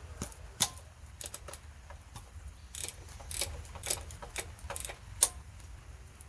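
Irregular metallic clicks and clinks of hand tools and loose engine parts being handled, about fifteen sharp taps in a few seconds, with the loudest near the end.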